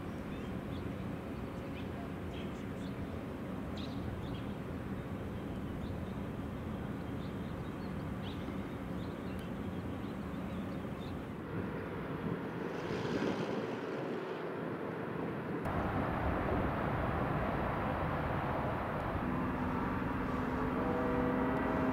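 Outdoor background noise: a steady low rumble, with a steady low hum setting in near the end.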